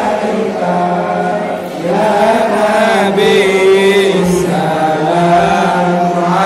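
A group of men chanting together in unison, with long held notes over a steady low drone, growing louder about two seconds in.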